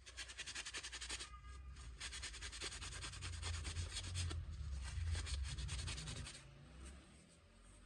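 Paper towel damp with isopropyl alcohol rubbed quickly back and forth over a laptop CPU and heatsink, scrubbing off dried thermal paste: a fast, even scrubbing rhythm that fades out near the end.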